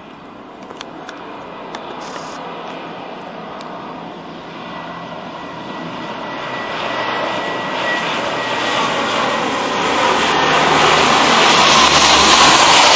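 Lockheed C-130 Hercules's four turboprop engines as the aircraft flies in low, growing steadily louder throughout. A thin high whine sits above the engine noise for the first half.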